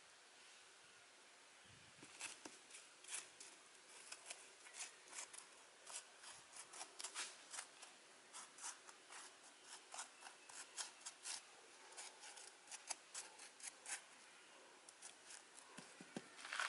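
Faint, irregular small ticks and clicks, several a second, as fingers pinch Chinese kale seeds from the palm and drop them into the cells of a plastic seedling tray. The clicks come in a louder cluster near the end.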